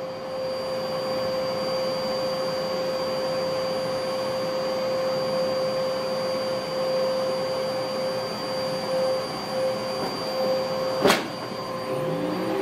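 Upright vacuum cleaner running on carpet, a steady whine over a rushing hiss, with one sharp knock about eleven seconds in.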